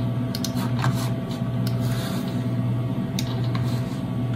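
Steady low hum of a running Power Mac G4 Digital Audio computer, with a few light clicks.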